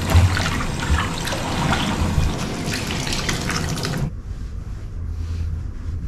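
Hot water running strongly from a tap and splashing, shut off suddenly about four seconds in.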